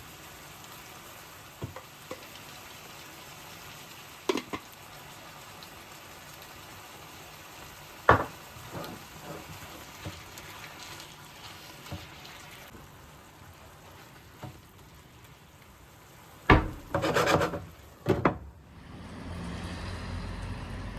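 Kitchen work: scattered knocks and clinks of utensils and dishes over a faint steady background, with a short burst of clatter near the end. A low steady rumble starts just before the end.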